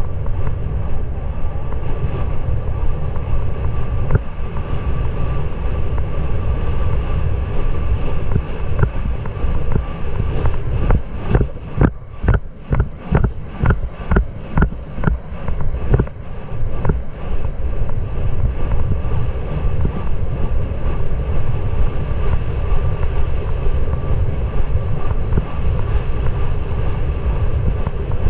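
Wind buffeting a GoPro's microphone as a racehorse gallops on a dirt track. About eleven seconds in, the wind noise eases for a few seconds and the horse's galloping strides come through as regular thumps, about two and a half a second.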